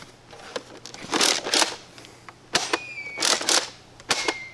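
Handling of a plastic Nerf blaster: a few short bursts of rustling and clattering with sharp clicks, and two brief high whistling tones, one in the middle and one near the end.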